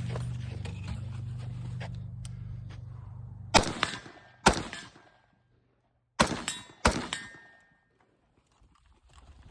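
Four rifle-calibre shots from a Galil ACE Gen 2 pistol in 5.45×39, fired in two pairs about a second apart, each crack trailing off with an echo and a faint ringing tone. A steady low hum is heard before the first shot.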